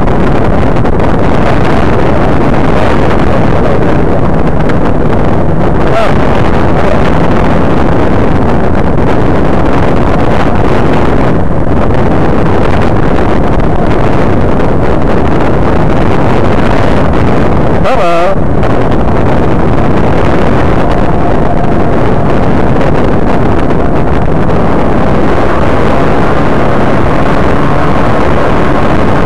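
Rotax 503 two-cylinder two-stroke engine of an ultralight trike running steadily, with heavy wind rush on the microphone. A brief wavering tone sounds about two-thirds of the way through.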